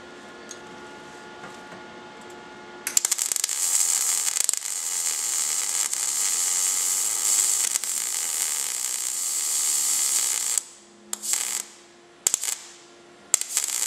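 MIG welder arc crackling and sputtering steadily for about eight seconds as a plug weld is run through a drilled hole in steel car body panels. It then stops, and three short zaps follow as the welder is pulsed to fill in where the weld spat and blew out the metal behind it.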